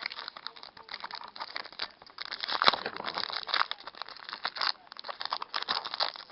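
Crinkling and crackling of a trading-card pack's foil wrapper being handled and opened, irregular throughout, with one sharp click about two and a half seconds in.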